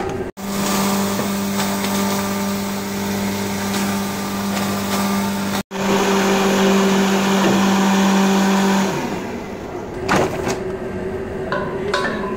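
Electric wet grinder running, its motor giving a steady hum under a grinding rush as it grinds wet green paste, with two brief dropouts. The hum stops about nine seconds in, and a knock and lighter handling sounds follow.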